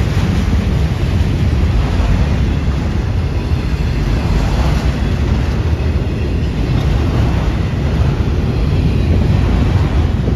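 Freight train of autorack cars rolling past close by: a steady rumble and rattle of steel wheels on rail.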